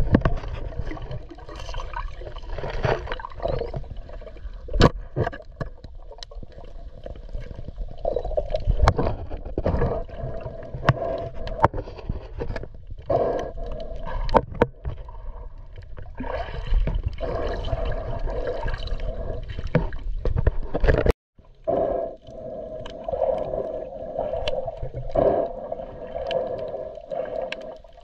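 Underwater sound through an action camera's housing: water gurgling and swishing, with many scattered sharp clicks. The sound cuts out briefly about two-thirds of the way through.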